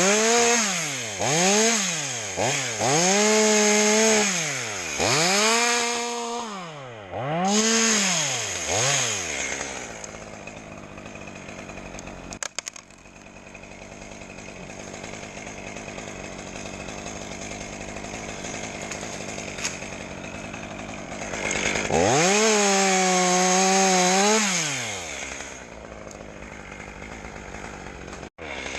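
Two-stroke chainsaw revved in short bursts, about five quick rises and falls in the first ten seconds, then dropping back to a lower running speed. About 22 seconds in it is held at full revs for roughly three seconds before falling away again.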